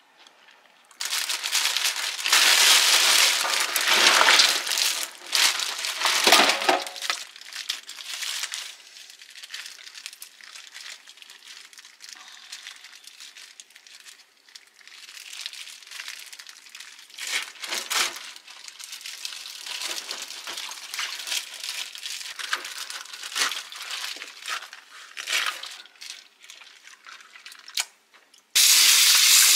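Thin plastic bag crinkling and rustling as hands open and pull apart a bag of shelled egg cockles in a stainless steel sink, loudest in the first several seconds and then softer and on and off. Near the end the tap is turned on and water starts running steadily into the sink.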